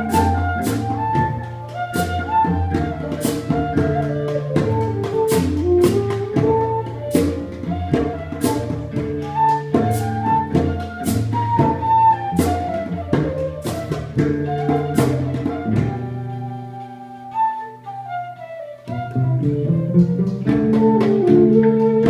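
Live acoustic ensemble music: a wooden flute plays the melody over cello, acoustic guitar and drums struck with sticks in a steady beat. About sixteen seconds in the drums stop and the music thins to long held low notes, then the full group comes back in about three seconds later.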